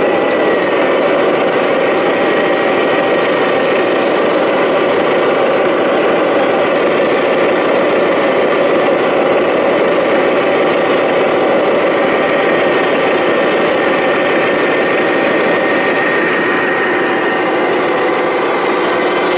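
Scale RC 8x8 truck, a model of the MAZ-537, running with a steady engine sound as it drives slowly over gravel, with a faint steady high whine above it.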